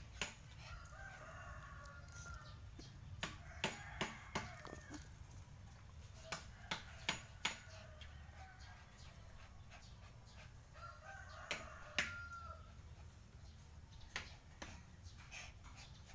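A rooster crowing twice, faint, each crow about a second and a half long, one about a second in and one near the end. Sharp clicks and taps are scattered throughout.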